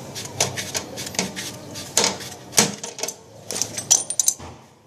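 Irregular clicks, knocks and metallic clinks of tools and metal parts being handled, a few of them ringing briefly near the end.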